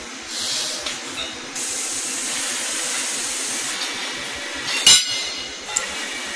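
Compressed air hissing from a robotic CNC tube-bending cell: a short blast, then a longer one of about two seconds, over a steady machine hum. About five seconds in comes a sharp metal clank, with a lighter click just after.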